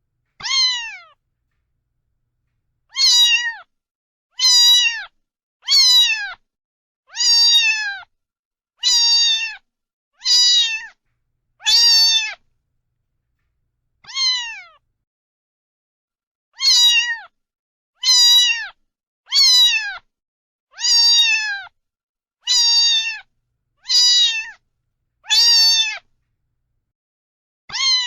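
A cat meowing over and over, about seventeen short meows that each fall in pitch, coming roughly every second and a half with a couple of longer pauses in the middle.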